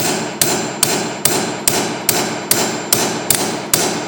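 Hammer striking a steel punch in a chainsaw bar-nose rivet tool, driving the old nose rivets out of the guide bar. Steady, even blows, about two and a half a second, each with a short metallic ring.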